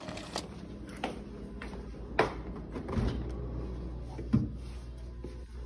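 Refrigerator door being handled and opened: a few sharp clicks and knocks, then a low steady hum sets in about three seconds in.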